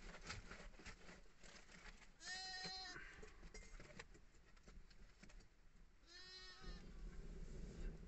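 Sheep bleating: two short calls about four seconds apart, over faint crackling of a wood fire.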